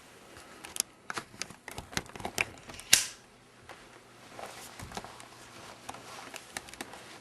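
Handling noise from a metal ratcheting hand crimper: an irregular run of sharp clicks and knocks, the loudest about three seconds in, then softer rustling and scattered ticks.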